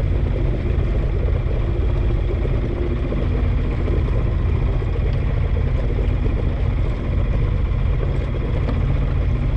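Sailboat's inboard engine running steadily while motoring with the sails furled: a constant low drone.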